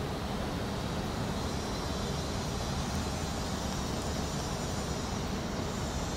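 Loud, steady rumble of an airplane passing overhead.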